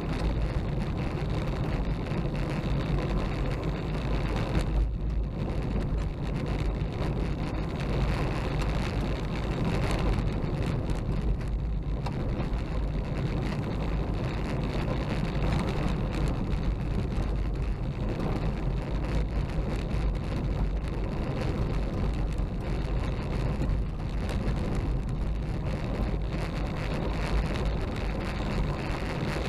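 A car driving along an unsealed gravel road, heard from inside the cabin: a steady engine and tyre drone with a fine crackle of gravel under the tyres.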